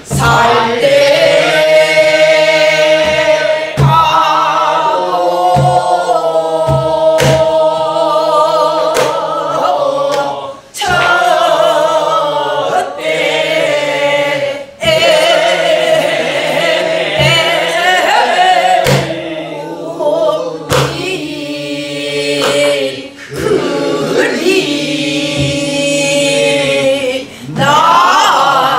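A group of voices singing a Namdo folk song together in long, wavering phrases, led by a woman's voice. Strokes on a buk barrel drum sound at uneven intervals.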